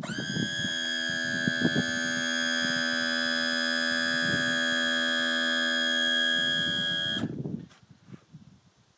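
A steady electronic warning buzzer sounding one unbroken tone for about seven seconds, then cutting off suddenly.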